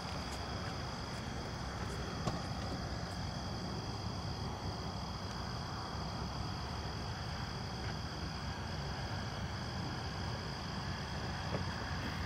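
Night insect chorus: a steady, unbroken high-pitched trilling at two pitches, over a constant low rumbling noise.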